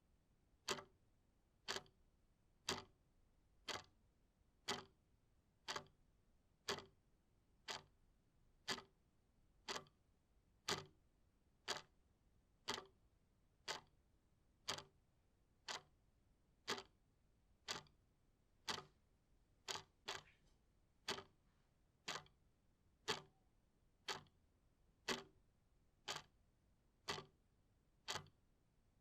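Clock ticking, one sharp tick about every second, evenly paced.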